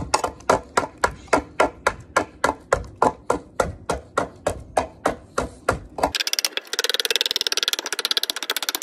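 A hatchet chopping and shaving down a green wooden axe handle, with sharp strikes about four a second. About six seconds in, the sound turns abruptly into a much faster, thinner rattle of strikes.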